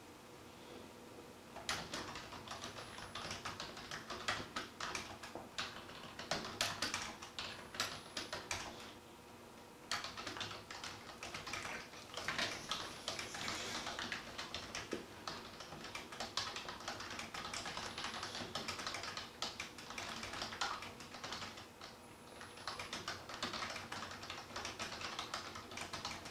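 Bursts of rapid, irregular light clicking, several seconds at a time, broken by short pauses about nine and twenty-one seconds in.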